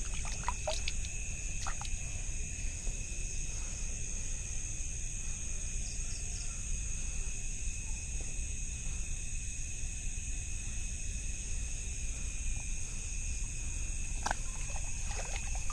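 Night insects such as crickets chirring steadily in two continuous high-pitched tones, over a constant low rumble of microphone handling noise. A few brief handling sounds come about a second in and again near the end.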